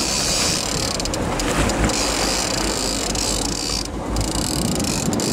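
Line-counter trolling reel ratcheting in clicks during the fight with a king salmon, over steady wind and boat noise.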